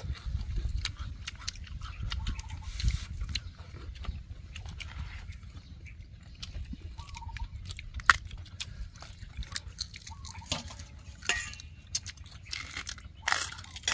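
People eating from bowls with chopsticks: chewing, sipping and slurping from bowls, and scattered clicks of chopsticks against bowls, with one sharp click about eight seconds in. A low wind rumble on the microphone underlies it.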